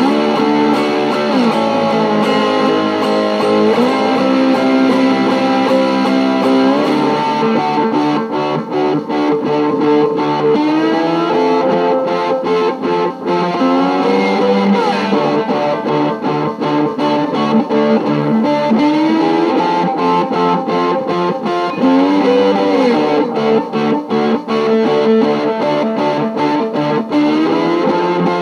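Cigar box guitar being played: held notes that glide up and down in pitch over a repeating riff. From about eight seconds in, the plucking becomes quicker and more rhythmic.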